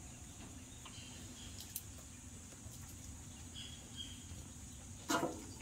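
Purple hull pea pods being split and shelled by hand, giving a few small snaps and clicks over a quiet outdoor background with a steady high insect hum and faint bird chirps. A brief voice sounds about five seconds in.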